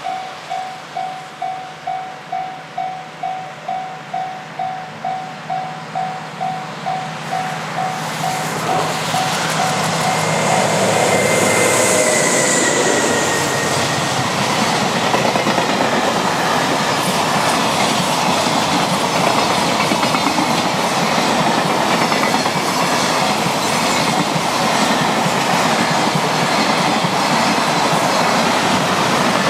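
A Japanese level-crossing warning bell clangs about twice a second as the train approaches. From about ten seconds in, a DF200 diesel-electric locomotive and its string of freight wagons pass at high speed in a loud, steady rumble with a rhythmic clatter of wheels that drowns out the bell.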